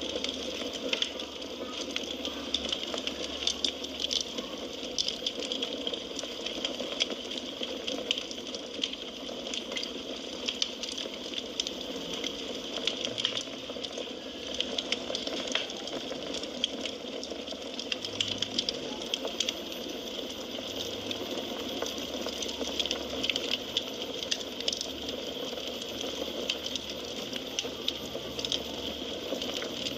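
Wood fire crackling in a fireplace: a steady hiss of burning logs with a constant scatter of small sharp pops and crackles.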